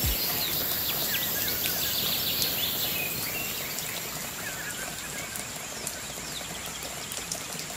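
Birds chirping in short calls over a steady outdoor hiss, the whole fading out gradually.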